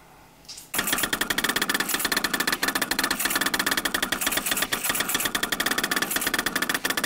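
Creality Ender 3D printer running a print: its stepper motors make a dense, rapid stuttering chatter over steady high whine tones as the print head darts back and forth. It starts abruptly under a second in.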